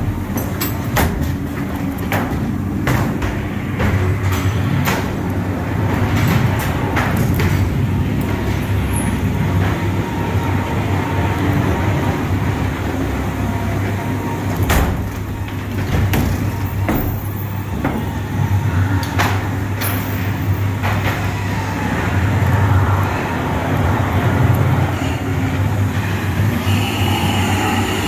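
Ghost train ride car rumbling and rattling along its track, with repeated sharp knocks and clacks.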